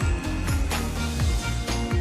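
Background music with a steady beat, about two strokes a second, over a deep bass that slides down in pitch.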